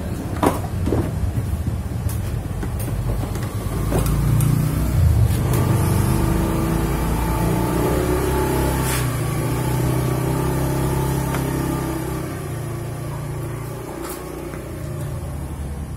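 Washing machine's wash motor running with a steady hum that builds about four seconds in and fades near the end, after a few clicks at the start.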